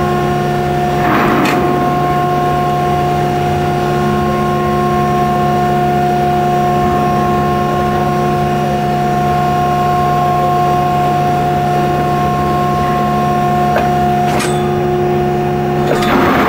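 Calbrandt low-dog railcar mover running with a steady hum of several fixed pitches while its dogs push a tank car slowly along the rail. Short noisy bursts come about a second in and again near the end.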